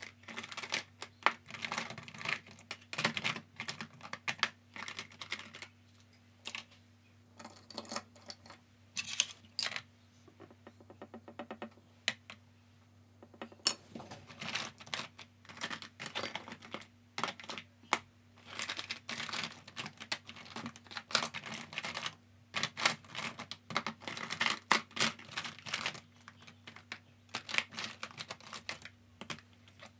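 Irregular small clicks, taps and rustles of paint tubes, caps and a brush being handled on a plastic palette and wooden table, with a quieter stretch about a third of the way in. A faint steady low hum runs underneath.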